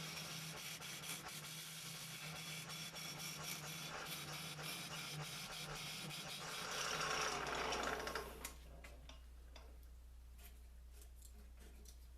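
Lathe turning a hard maple blank while a gouge cuts it, a rough scraping hiss with scattered clicks over a steady motor hum. The cutting grows loudest about two-thirds of the way through, then stops suddenly, leaving a lower hum.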